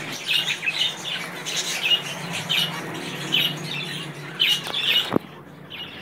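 Caged pet birds, finches and budgerigars, chirping in quick, short, repeated high calls over a low hum. About five seconds in the sound breaks off with a click, leaving fainter chirping.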